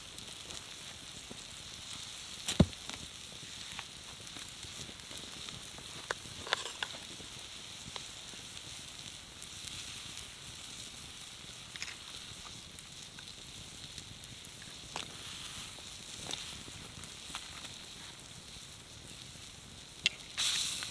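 Pieces of beef sizzling on a hot stone in a campfire, a steady high hiss, with scattered clicks and scrapes from a knife blade turning the meat on the stone. A sharp knock about two and a half seconds in is the loudest sound, and there is a short louder rasp near the end.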